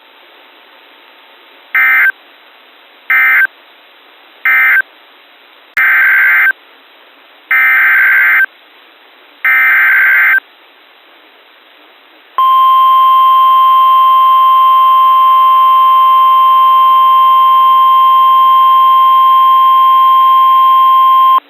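Emergency Alert System data tones on NOAA Weather Radio. First come three short screeching end-of-message bursts, then three longer SAME header bursts that encode a new warning. About twelve seconds in, the steady 1050 Hz weather radio warning alarm tone starts and holds for about nine seconds, signalling that a warning is about to be read.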